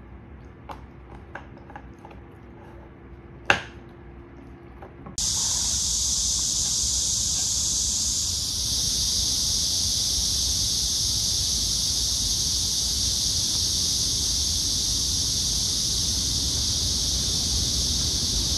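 A dog gnawing a chew treat, with a few soft clicks and one sharp click. About five seconds in, a loud, steady, high-pitched insect chorus starts abruptly and holds unbroken.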